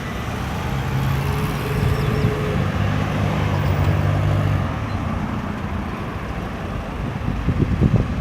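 Road traffic going around a busy roundabout: a steady wash of tyre and engine noise, with one vehicle's low engine hum standing out from about a second in until it fades a little past halfway. Near the end a louder, low rumble builds as more traffic comes through.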